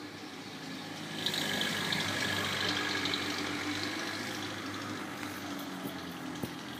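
Thunder rumbling from a weak thunderstorm. The roll swells suddenly about a second in and slowly fades over several seconds.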